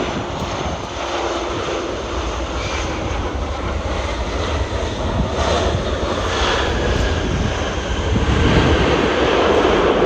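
Airliner flying low overhead, its engine noise growing steadily louder and loudest near the end.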